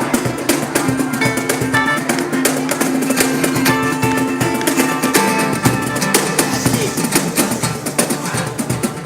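Live band music led by a plucked string instrument, with quick repeated picked notes over a steady percussive rhythm.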